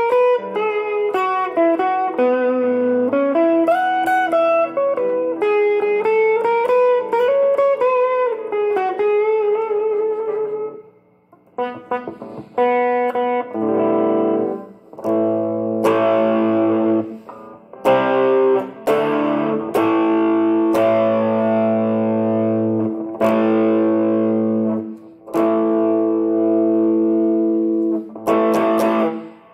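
Electric guitar played through a Valeton Dapper Amp Mini pedal into a Fender Champion 20 amp, with the pedal's reverb on. A single-note melody with bent and wavering notes runs for about ten seconds, then ringing chords are struck one after another with short breaks.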